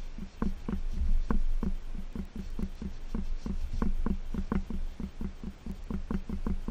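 Quick, regular ticking strokes, about four a second, from hand work on a metal exhaust header pipe.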